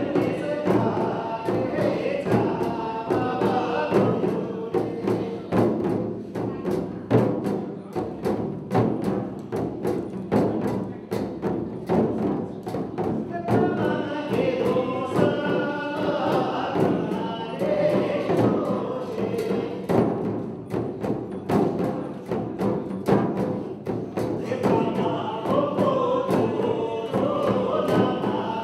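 Jhakri shamans beating dhyangro frame drums with curved sticks in a steady, rapid rhythm, while a group chants in phrases that come in near the start, again around the middle and once more near the end.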